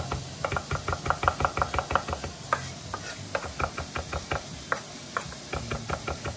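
Chef's knife chopping parsley on a wooden butcher-block cutting board: a fast run of sharp knocks, about six a second, that turns more uneven in the second half.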